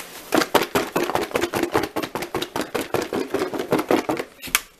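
Sauced chicken wings shaken hard in a plastic bowl capped with a disposable plate, the wings knocking against the bowl and plate about six times a second to coat them in the sauce. The shaking stops suddenly near the end.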